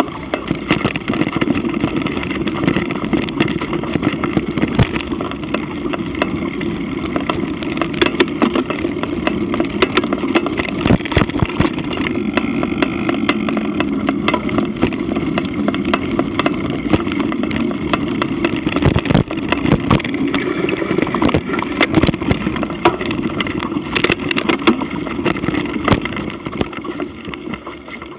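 Mountain bike riding over a rough dirt trail, picked up by an action camera's microphone: a steady rumble of tyres on dirt, with frequent sharp knocks and rattles as the bike goes over bumps.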